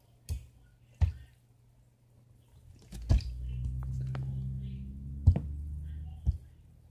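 A handful of sharp knocks, the loudest about five seconds in, with a steady low hum that starts about three seconds in and stops just before the end.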